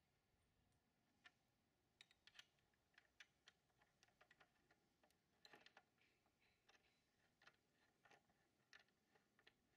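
Near silence, broken by faint, scattered small clicks.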